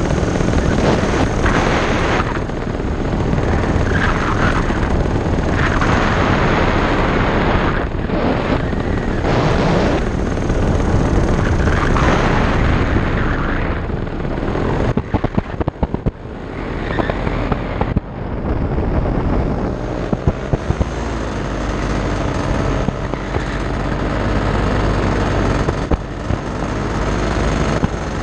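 Paramotor engine and propeller running steadily in flight, heavily buffeted by wind on the microphone. Around the middle the wind noise breaks up with a few crackles, and the engine's steady drone comes through more clearly in the second half.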